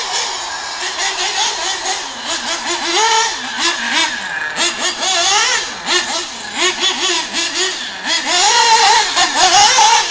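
Radio-controlled off-road buggy's motor revving up and down in quick rises and falls of pitch as it is throttled through the corners of a dirt track, loudest near the end.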